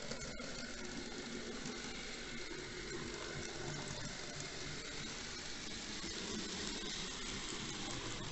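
Model train running along the track: a steady whirring, rushing noise with a few faint ticks.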